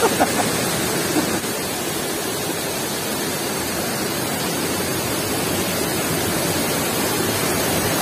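Waterfall: water rushing steadily over sandstone ledges and sheeting across the flat rock, an even, unbroken rush.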